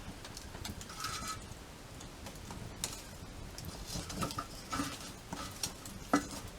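Wood fire crackling, with scattered small pops and ticks over a low steady hiss, and one sharper pop near the end.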